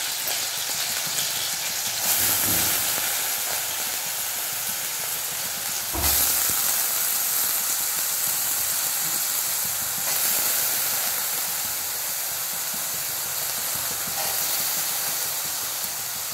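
Raw diced potatoes frying in groundnut oil in a steel kadai, a steady sizzling hiss as their water spits in the hot oil. It flares up sharply with a low thud about six seconds in.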